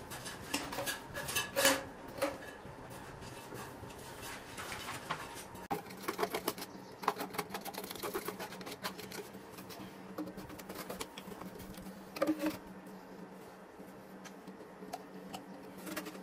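Grey PVC drain pipes and fittings being handled and pushed together: scattered plastic clicks, knocks and scrapes, with louder knocks about a second and a half in and again about twelve seconds in. A steady low hum runs under it from about five seconds on.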